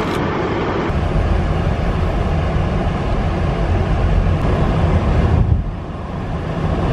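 Road and engine noise inside a moving car's cabin: a steady low rumble with tyre hiss. The sound changes abruptly about a second in and dips briefly about five and a half seconds in.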